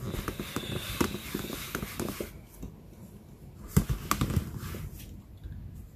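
A stamp on a clear acrylic block rubbed over the damp fibre pads of a Stampin' Scrub to scrub ink off it: a scratchy rubbing with small clicks that eases off about two seconds in. A few sharp knocks of the block follow around four seconds in.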